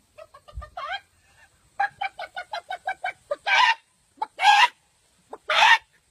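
A woman imitating a chicken with her voice: a few short chirps, then a quick run of short clucks at about six a second, then three longer, louder cries about a second apart.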